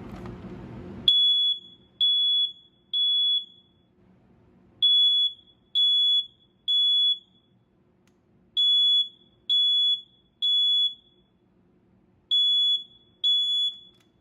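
BRK model 83R smoke alarm sounding on test: a high-pitched beep, about half a second long, repeated in groups of three, the standard temporal-three alarm pattern, with a pause of about a second and a half between groups. It starts about a second in and stops after the second beep of the fourth group.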